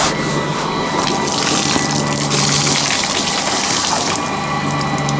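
Rainwater pooled on a sailboat's canvas dodger being pushed off, pouring and splashing down, heaviest in a gush from about two to four seconds in. A steady low hum runs underneath.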